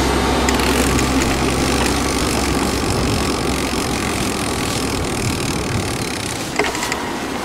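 Steady rushing of wind and road noise while riding an e-bike along a road. A low steady hum fades out over the first two seconds or so.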